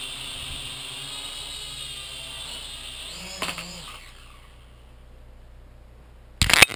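Syma X5C quadcopter's four small electric motors and propellers whining steadily while hovering. About three seconds in there is a knock and the whine wavers in pitch, then the motors wind down and stop within a second. Near the end, a sudden loud clatter of knocks.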